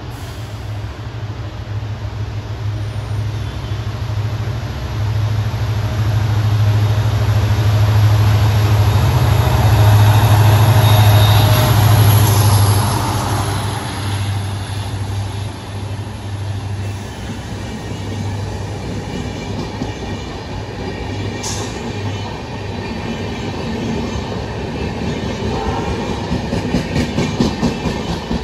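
EMD WDP4-class diesel locomotive approaching and passing, its engine drone rising to its loudest about a third of the way in. Passenger coaches then roll past, with a rapid rhythmic clatter of wheels over rail joints near the end.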